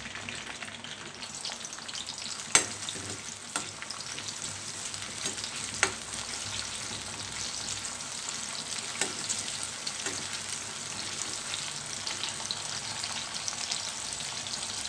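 Sliced onions sizzling steadily in hot oil in a kadai, stirred with a metal ladle that clinks sharply against the pan a few times.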